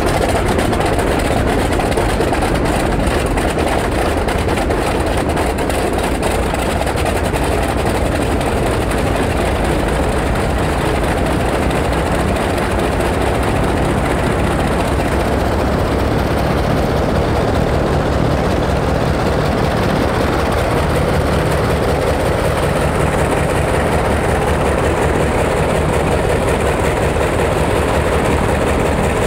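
Radial aircraft engine on a ground-run stand, running steadily with its propeller spinning: a loud, continuous engine and propeller drone.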